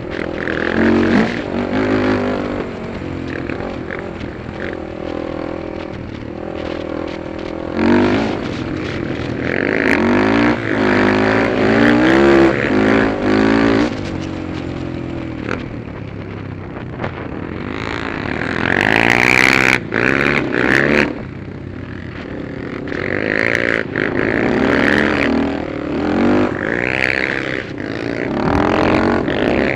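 Honda 400EX quad's single-cylinder four-stroke engine under way on a dirt trail, its revs climbing and dropping again several times as the rider accelerates and backs off.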